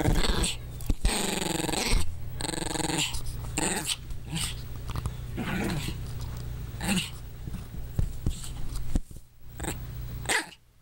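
Small long-haired dog growling in play while mouthing and tugging at a blanket: a string of short growls with gaps between them, dropping away briefly near the end.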